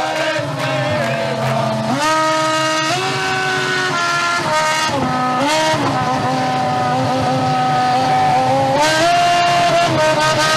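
Toyota Formula One car's engine running with steady revs that step up and down a few times. The revs rise about two seconds in, dip and climb again midway, and rise once more near the end.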